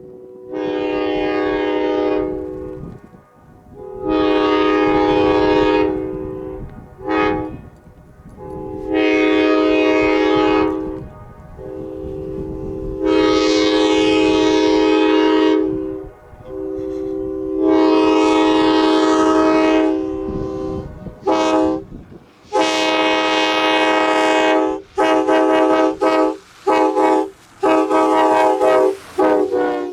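Multi-chime locomotive air horn sounding a chord in long and short blasts, a long-long-short-long sequence repeated, then a run of quick short toots near the end, over the low rumble of the passing train.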